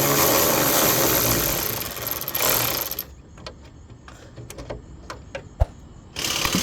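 A cordless power tool runs for about three seconds, backing out a 12 mm hood bolt. Small clicks and knocks of handling follow, then the tool starts again near the end.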